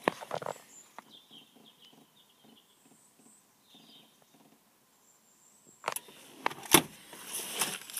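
Faint bird chirps over a quiet background, then, about six seconds in, a few sharp knocks followed by rustling handling noise.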